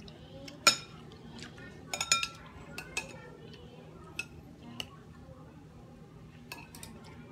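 Metal spoon and fork clinking against a glass bowl and a plate while eating: a string of sharp clinks, the loudest about two-thirds of a second in, a quick cluster with a short glassy ring around two seconds, and lighter taps after.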